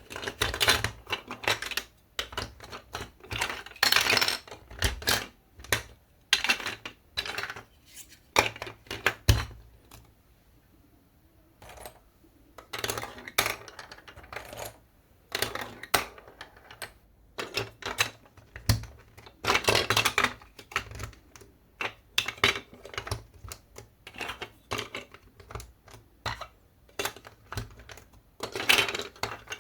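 Hard clicks and clacks of marble-run pieces knocking together as the course is put together, coming in short clusters with a quiet pause about ten seconds in.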